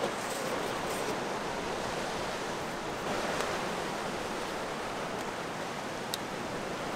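Sea surf washing in among shoreline rocks: a steady rushing noise that swells slightly about three seconds in.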